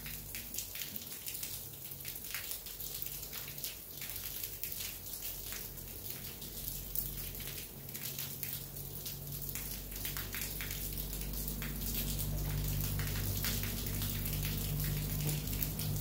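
Thunderstorm rain: separate drops pattering and dripping close by, with a low rumble building in the second half.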